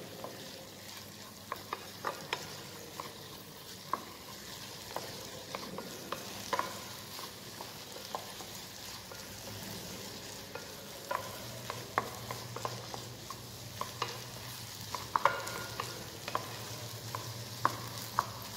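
Wooden spatula stirring diced vegetables and tomato puree in a small non-stick pan on a gas burner: scattered clicks and scrapes of the spatula against the pan over a steady light sizzle of the frying vegetables.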